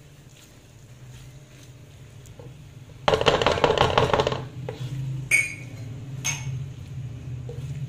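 A spatula scraping and stirring okra masala in a metal kadhai: a rapid run of scraping strokes about three seconds in, then two short scrapes against the pan a second apart. A low steady hum runs underneath.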